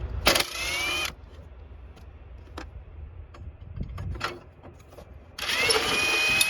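Impact tool with a 10 mm socket run in two short bursts, its motor whine rising as it spins up, as it backs off the battery hold-down rod nuts. The first burst comes just after the start, the second near the end, with small metallic clicks in between.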